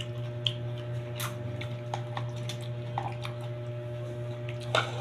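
Soft squishy handling sounds and a few scattered light clicks as food is picked at by hand and with a plastic spoon, over a steady low hum.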